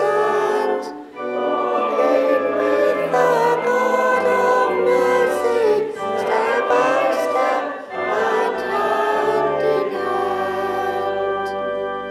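A hymn sung by voices with instrumental accompaniment: the last line of the final verse, ending on a long held chord that fades out at the very end.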